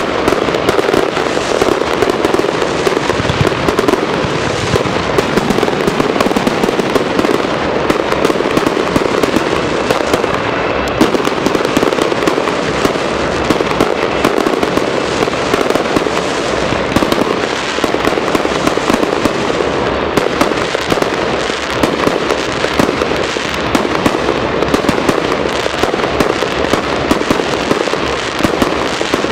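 Fireworks display: aerial shells bursting in a rapid, unbroken barrage of bangs and crackles.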